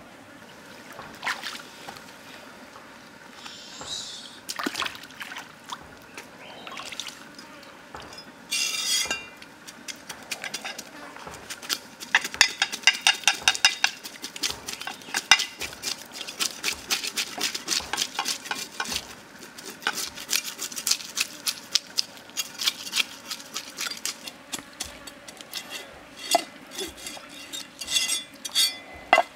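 Cleaver blade scraping scales off a fish on a wooden chopping block: quick scraping strokes, sparse at first, then several a second through the middle.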